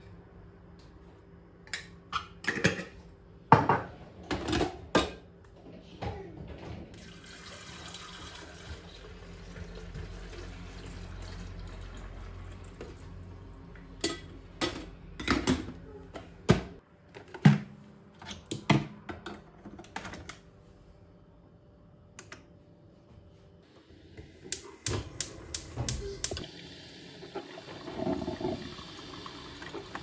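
Filter coffee being made in a drip coffee maker: clinks and taps of a glass coffee jar and scoop against the machine, a stretch of pouring water, the lid snapping shut and buttons being pressed, then the machine starting to brew with a steady hiss near the end.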